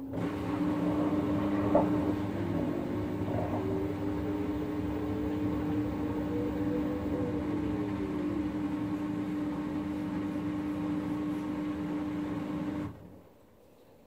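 LG front-loading washing machine draining and spinning at the end of the prewash: a steady pump hum switches on abruptly, while the drum motor's whine rises in pitch as the spin speeds up, then falls. About a second before the end the hum cuts off suddenly and the drum has stopped.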